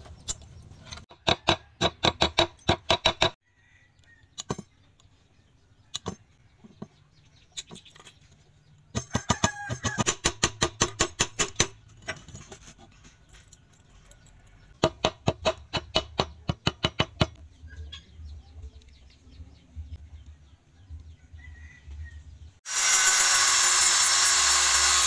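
Quick runs of light, ringing hammer taps, about seven a second in three bursts with a few single taps between, driving small metal pins into a wooden axe handle. Near the end an angle grinder with a sanding disc starts up and runs steadily, much louder than the taps, sanding the handle.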